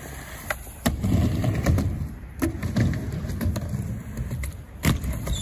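Skateboard wheels rolling over concrete with a low, steady rumble, broken by sharp clacks, the loudest about a second in and again near the end.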